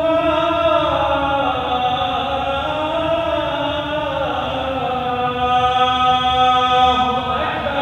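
A man's solo voice chanting the Islamic call to prayer (adhan), with long held notes that bend and ornament in pitch. The phrase ends shortly before the close.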